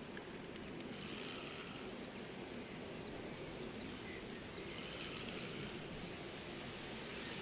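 Steady outdoor background noise at a riverbank, with faint bird calls about a second in and again about five seconds in.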